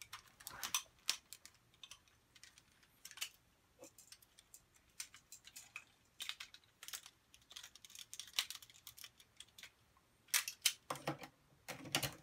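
Hard plastic Power Rangers Thunderzord toy parts clicking and knocking as they are handled, pulled apart and set down on a desk. Irregular sharp clicks run throughout, with a cluster of louder knocks near the end.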